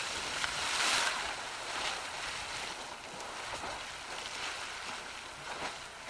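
Sawmill Geyser erupting in bursts: a steady rushing splash of water and steam, swelling to a louder burst about a second in.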